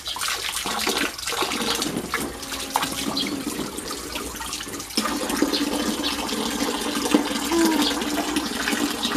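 Water pouring from a hose into a shallow inflatable paddling pool, a steady rush of running water with small splashes as a child wades through it. A low steady hum comes in about halfway through.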